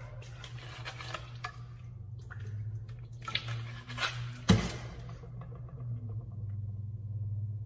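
Room noise with a steady low hum, scattered small clicks and rustles, and one sharp click a little past halfway.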